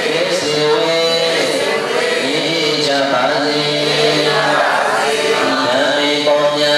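Voices singing together in a chant-like song with music, on long held notes that change about every second.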